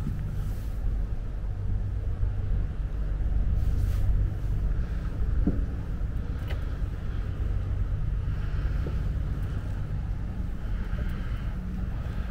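Motor yacht's inboard engine running steadily under way, a low, even drone.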